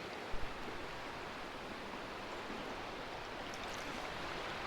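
Shallow creek water rushing steadily over the riffles around a wading angler. Two brief low bumps about half a second in.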